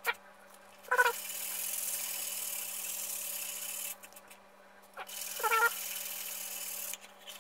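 Birch plywood being hand-sanded with a 240-grit sanding sponge: a steady scratchy rub that stops for about a second near the middle and then resumes. A cat meows twice over it, briefly, about a second in and again past five seconds; the meows are the loudest sounds.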